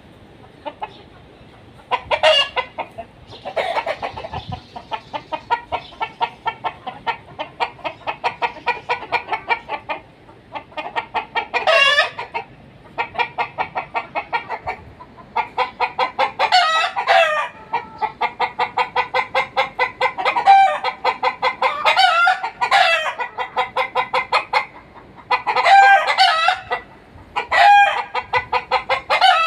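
Chickens alarm-cackling, a long run of rapid repeated clucks, with louder drawn-out squawking calls breaking in several times. The hens are sounding the alarm at a sensed danger.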